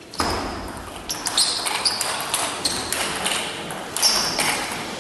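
Table tennis rally: the ball clicks off the bats and bounces on the table in quick alternation, two or three sharp ticks a second, over a background murmur in the sports hall.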